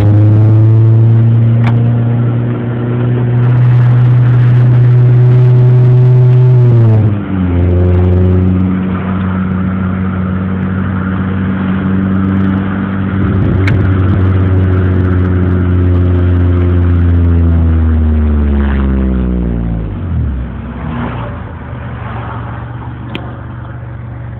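2001 Honda Prelude's four-cylinder engine droning through an aftermarket race exhaust under way. It holds steady revs, drops in pitch about seven seconds in as a gear changes, holds again, then falls sharply near twenty seconds in and settles to a quieter steady note.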